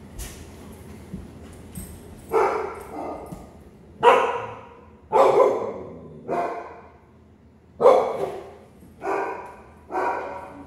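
A dog barking repeatedly: about seven drawn-out barks roughly a second apart, starting about two seconds in.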